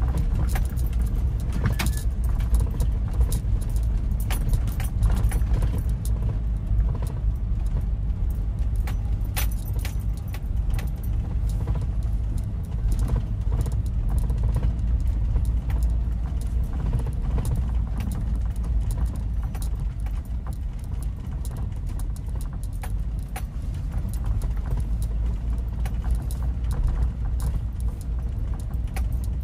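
Car being driven, with a steady low road-and-engine rumble and frequent small rattles and clicks over it.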